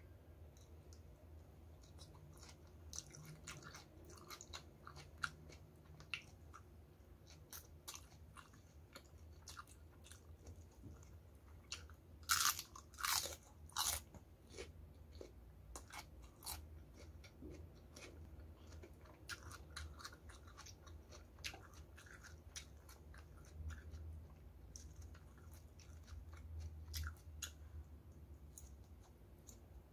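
Close-miked chewing and crunching of crispy battered fried chicken: a run of crunchy bites and chews, with the loudest crunches bunched together about halfway through.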